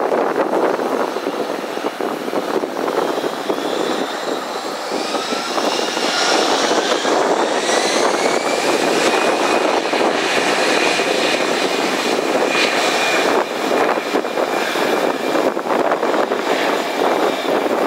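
Airbus A320-214's CFM56 turbofan engines at takeoff power: a steady, loud jet roar. Several high whines rise in pitch over the first dozen seconds.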